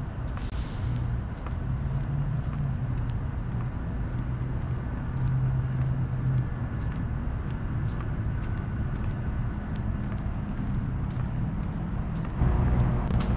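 Steady low rumble of outdoor road traffic, with a car coming closer and louder about a second before the end.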